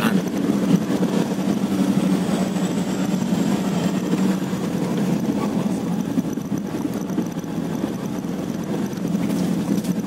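Car engine running steadily as the car climbs a steep, narrow road, heard from inside the cabin.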